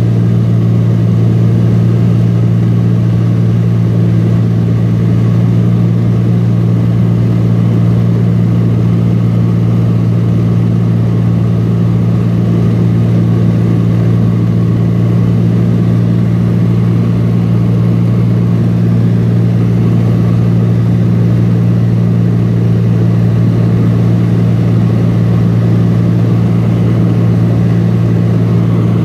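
Small propeller plane's engine and propeller running steadily in cruise, heard from inside the cabin as a loud, even low hum that does not change.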